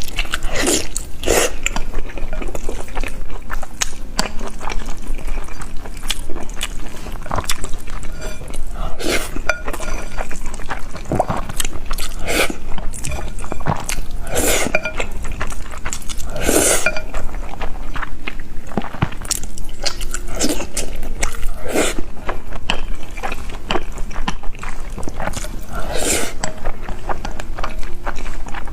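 Close-miked chewing of fried egg, with wet mouth sounds and irregular sharp smacks.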